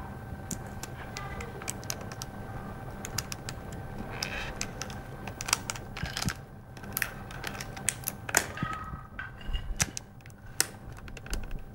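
Hands opening a small retail box: irregular clicks and taps with short crinkling rustles of plastic and cardboard packaging, over a faint steady hum.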